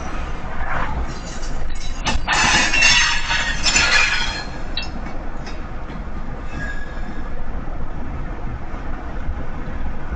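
CSX freight train's cars rolling past on the rails, heard from a moving vehicle alongside over steady low road rumble; the high rush of wheel noise swells louder about two to four seconds in.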